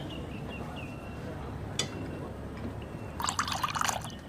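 A drink being poured into a glass: a single light clink about halfway through, then a short splashing pour near the end.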